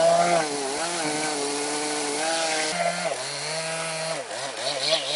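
Chainsaw cutting through the flared butt end of a red oak log, its engine pitch dipping and recovering under load. About three seconds in the pitch drops lower, then wavers up and down quickly near the end.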